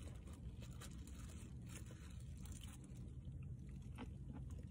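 A person chewing a mouthful of rice and fish, with soft irregular mouth clicks and small crunches, over a faint low steady hum.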